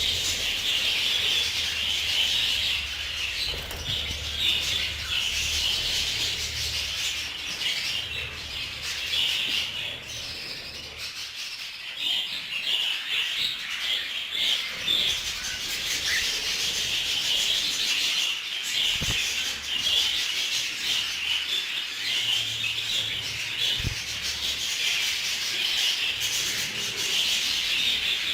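A colony of budgerigars chattering all at once in a dense, unbroken chorus. A low rumble comes and goes underneath, with a couple of brief thumps in the second half.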